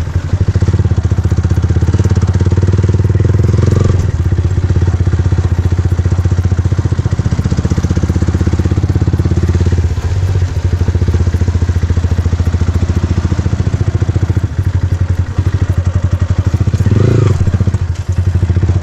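Yamaha R15M's single-cylinder engine running through an aftermarket Akrapovic exhaust at a steady low engine speed, with a few brief dips in level.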